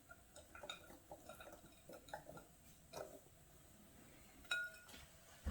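Faint, scattered clinks and taps of kitchen utensils against bowls and dishes, with one sharper clink about a second before the end that rings briefly.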